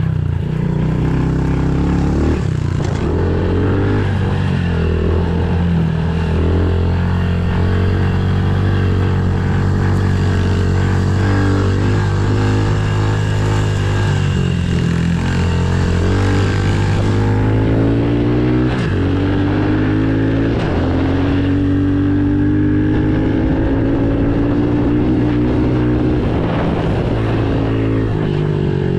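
Pit bike engine heard from a camera mounted on the bike, running hard and rising and falling in pitch as the throttle is worked, with a long steady climb in pitch in the latter part as the bike accelerates.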